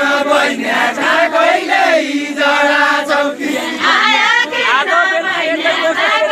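Deuda, the Far-Western Nepali folk song, sung by several voices together in a loud, drawn-out chant with no instruments.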